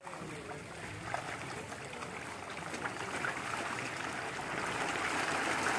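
Water splashing and churning as a dense crowd of pond fish thrash at the surface for feed poured in by hand: a steady wet pattering that slowly grows louder.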